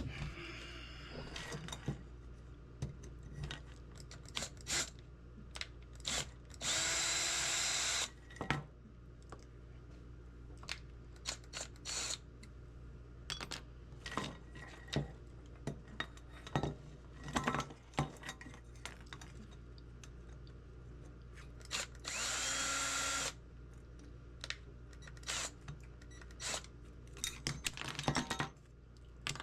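Cordless drill running twice in short bursts of about a second and a half, its motor pitch rising as it spins up. Between the bursts come scattered clicks and clinks of metal parts being handled.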